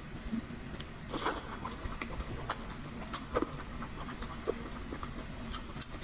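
Close-miked eating: chewing and slurping glass noodles and braised pork, with scattered wet mouth clicks.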